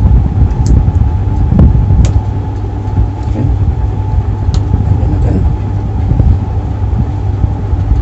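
Steady low hum and rumble of background noise, with a few small clicks that fit handling the microwave's wiring and parts.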